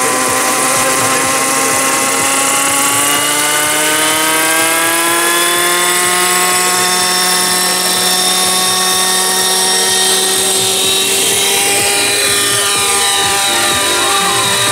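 Big gas-engined RC helicopter, an AirStar Mongoose, running: the engine and rotor tone climbs in pitch over the first several seconds as it spools up and lifts off, then holds steady. Near the end the tone wavers and shifts as the helicopter flies off.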